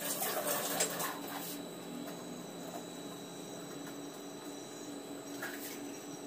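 Vegetables and utensils being handled on a kitchen counter, with a few short knocks and clatters in the first second and a half and again near the end, over a steady faint hum.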